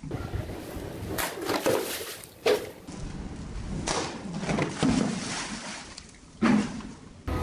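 A long knife blade slashing through water-filled plastic bottles: several sharp chops with water splashing, the loudest about two and a half seconds in and near the end.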